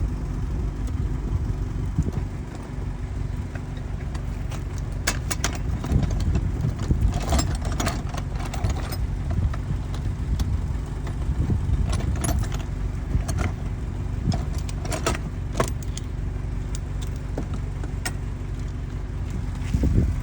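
Irregular metallic clinks and clicks of hand tools, a 10 mm socket and ratchet being handled and fitted, over a steady low rumble.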